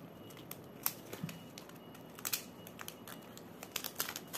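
Light irregular clicks and taps of diamond painting work: small resin drills being picked up and pressed onto the sticky canvas with a drill pen, a dozen or so scattered clicks.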